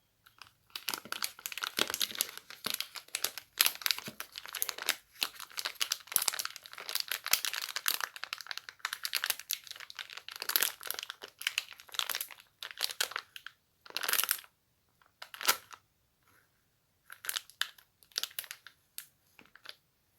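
Crinkly material being rustled and crumpled, with a dense run of crackling that breaks about two-thirds of the way through into a few short, separate crinkles with pauses between them.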